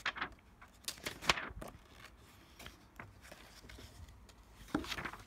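Magazine pages being turned and handled: a few short paper rustles and flicks in the first second and a half, and another cluster near the end.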